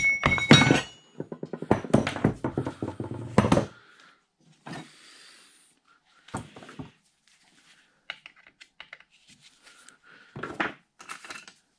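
Rapid series of hammer blows on steel, driving a tight timing pulley off its shaft in a Bridgeport variable-speed mill head, with a short metallic ring near the start. After about three and a half seconds come a few quieter clicks and knocks of parts being handled, and one louder thud near the end.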